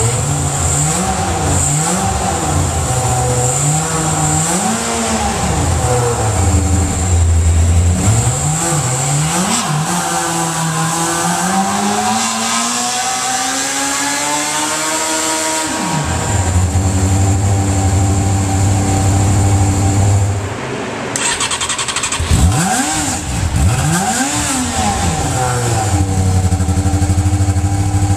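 Honda CBR600 inline-four motorcycle engine in a Formula SAE car on a chassis dyno, breathing through a 20 mm intake restrictor. It is blipped up and down several times, then climbs steadily through the revs for about six seconds in a dyno pull before dropping suddenly back to idle. Near the end it is blipped twice more and settles into a steady idle.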